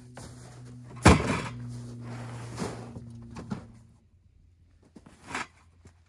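Hard plastic pulk sled clattering as it is pulled off a pickup's tailgate onto packed snow, with one loud knock about a second in and then lighter knocks as gear bags are set into it. A low steady hum underneath stops about four seconds in.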